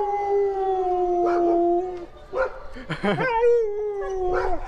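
Siberian husky howling twice: a long, slightly falling howl of about two seconds, then a shorter one a little over three seconds in.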